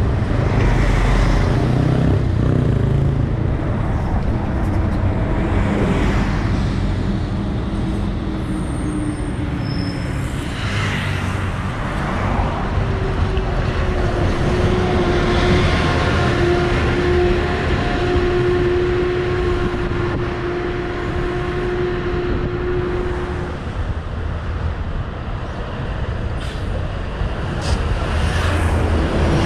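Articulated diesel city buses passing close by with steady road traffic, engines running and tyres on the road. For about ten seconds in the middle a steady whine rises above the rumble.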